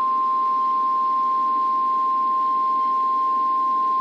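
NOAA Weather Radio warning alarm tone: a single steady high-pitched tone near 1 kHz, held without a break over faint radio hiss. It signals that a weather warning message follows.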